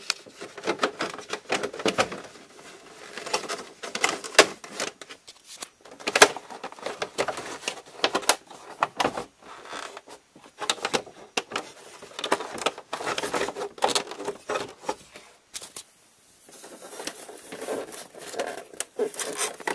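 Irregular rustling, clicking and tapping of hands fitting a new leather e-brake boot into a plastic center console, with handling noise close to the microphone.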